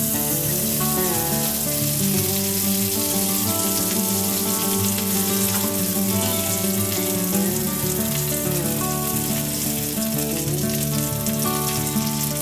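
Curry leaves sizzling in hot oil in a stainless steel pan, a dense hiss that starts suddenly as they go in, over instrumental background music.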